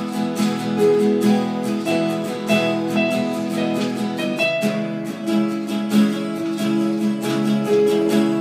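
Instrumental jam: acoustic guitar strumming chords with a Casio digital keyboard playing held notes and chords alongside, no singing.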